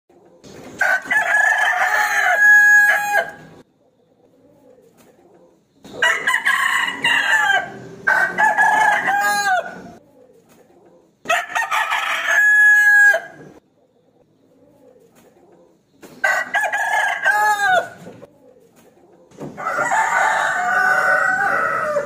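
Rooster crowing repeatedly: six long crows about two seconds each, spaced a few seconds apart, two of them nearly back to back.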